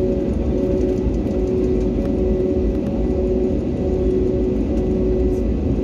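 Inside a jet airliner's cabin while it taxis: a steady engine rumble with a couple of steady whining tones fading in and out. The pitch holds level, with no spool-up to take-off thrust.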